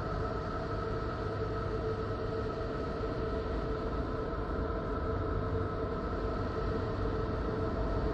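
Voyager recording presented as the sound of Neptune: spacecraft data turned into audio, heard as a steady rumbling drone with a few held tones above it, unchanging throughout.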